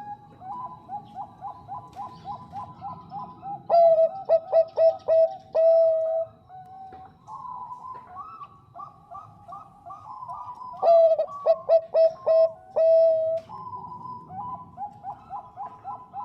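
Bangkok-type zebra dove (perkutut) cooing in rapid runs of short, clear, bubbling notes. It calls louder in two spells, about four seconds in and again about eleven seconds in, and softer in between.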